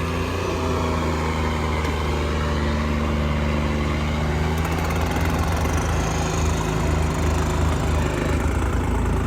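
Diesel tractor engine running steadily under heavy load, pulling in a tractor tug-of-war.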